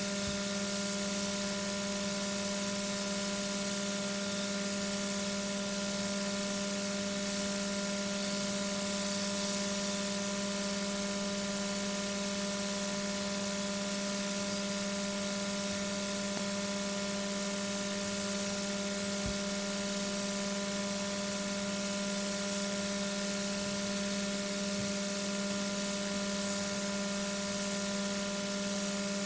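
Steady electrical hum from the webcam's audio: several fixed tones, the lowest and strongest the loudest, over a constant hiss. A single faint click comes about two-thirds of the way through.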